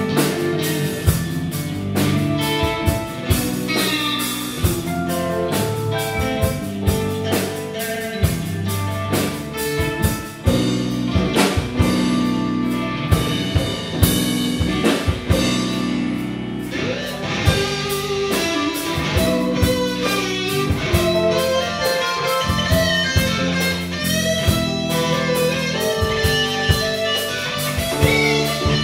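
Live band playing with electric guitar, bass guitar, keyboard and drum kit, the drums keeping a steady beat.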